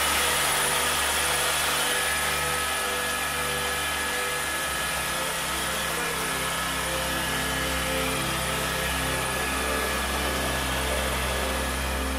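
Helicopter running, heard from inside the cabin: a steady engine and rotor drone under a constant high whine.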